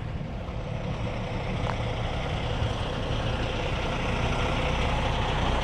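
Heavy wrecker's diesel engine idling steadily, growing slowly louder as it is approached.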